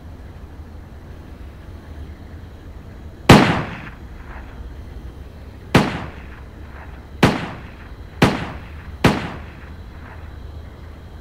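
Five pistol shots, the first about three seconds in and the rest coming closer together, each trailing off in a short echo.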